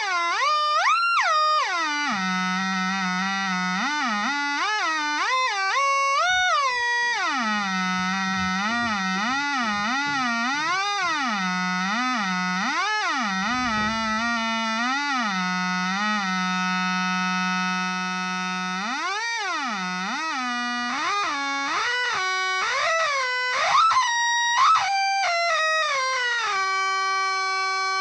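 Electric guitar through a Zvex Fuzz Factory fuzz pedal and a small Roland Cube 30 amp: a thick, buzzing fuzz tone that swoops up and down in pitch like a theremin, over and over, between held low notes. Near the end it settles onto one higher sustained note.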